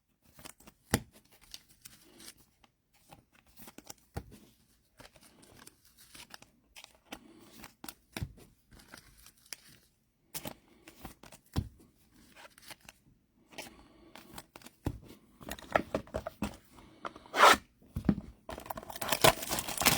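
Trading cards being handled: scattered light clicks and scrapes of cards sliding and tapping. Near the end come longer stretches of a foil pack wrapper tearing and crinkling.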